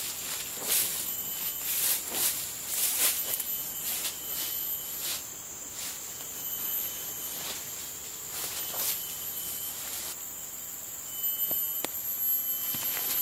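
Boots scuffing and stepping through dry pine needles and leaf litter, a stroke every second or so, fewer in the second half. Under it runs a steady high drone of insects.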